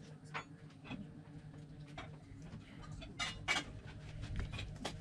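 Small clicks and ticks of hands handling fishing tackle, fitting a side lead onto the line, with two louder crackling clicks about three seconds in.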